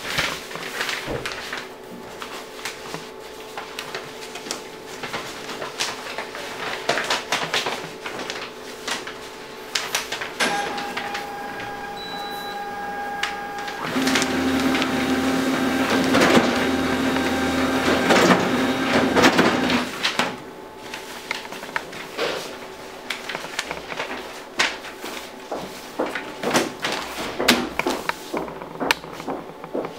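Neolt Neofold 920 S drawing-folding machine at work: paper rustling and sliding as a large sheet is hand-fed and folded, over the machine's steady hum. The machine runs louder with a steady low drone for about six seconds in the middle, then there are scattered rustles and clicks as the folded paper is handled.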